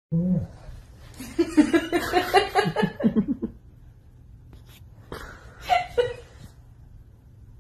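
A person laughing in a run of quick pulses for about two seconds, with a shorter vocal sound a few seconds later.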